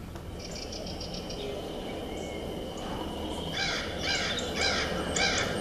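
Forest ambience with a bird calling: a brief run of quick high chirps, then from a few seconds in a steady series of short, harsh, falling calls, about two a second.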